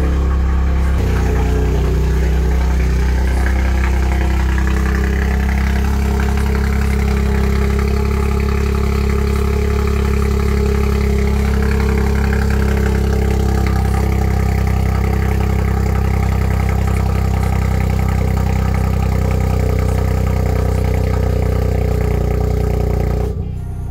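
Toyota GR Yaris's turbocharged 1.6-litre three-cylinder engine idling steadily just after a cold start, settling slightly about a second in.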